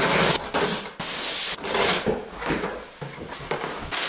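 Packing tape being scratched open and peeled off a cardboard box, then crumpled brown kraft packing paper rustling and crinkling as hands dig through it, in a run of uneven noisy bursts.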